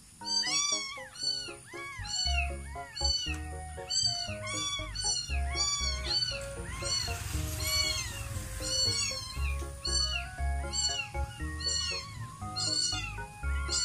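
Young kitten mewing over and over, short high rising-and-falling cries about two a second, over background music with a steady bass beat.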